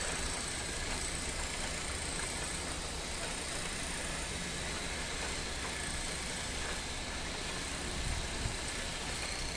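A silicone spatula stirring chicken pieces through creamy gravy in a pan on the stove, over a steady hiss from the cooking.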